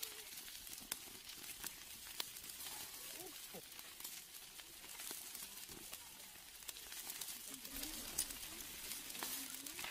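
Quiet background with scattered faint light clicks of grilled meat pieces being picked out of a steel pot and set on a plate.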